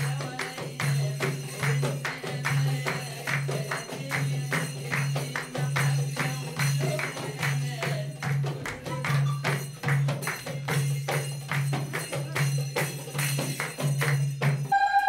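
Festive wedding music: quick, rhythmic tambourine strokes over a steady low drum beat. Near the end it cuts off abruptly into a steady high electronic tone.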